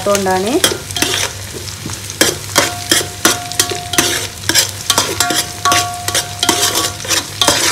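Steel spoon stirring sliced onions and whole spices frying in hot coconut and vegetable oil in an aluminium pot. The oil sizzles steadily while the spoon scrapes and knocks against the pot again and again.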